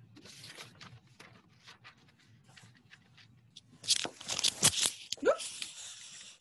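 Rustling, scraping and clicking of headphones being handled close to a microphone, taken off and put back on, with the loudest burst of rustles and knocks about four seconds in.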